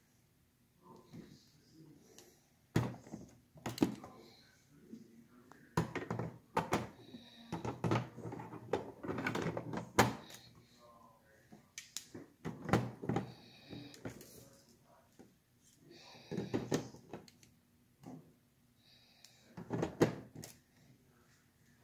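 Plastic Lego bricks clicking and knocking as sections of a Lego model are lifted off and set back by hand, in irregular sharp clicks with quieter gaps between.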